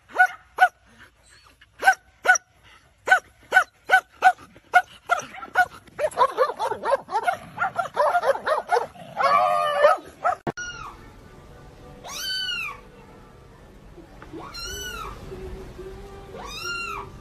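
A dog yipping in short, high, sharp barks, about two a second, breaking into a denser run of excited yelps. Then a kitten meowing, three separate meows a couple of seconds apart.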